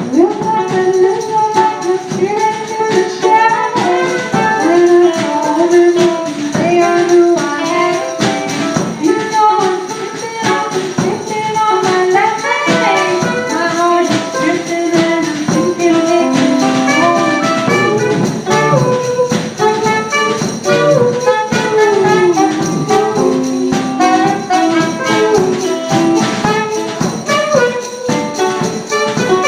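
Live band playing an upbeat song, with several melodic parts over a steady percussive beat.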